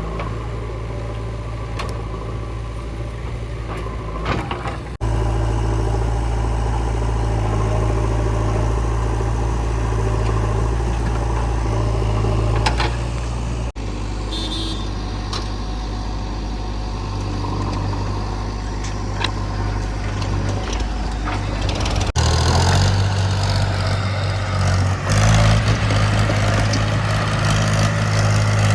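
Diesel engines of a JCB 3DX backhoe loader and a tractor running steadily while mud is loaded. The engine sound shifts abruptly about 5, 14 and 22 seconds in, and is louder and noisier over the last few seconds.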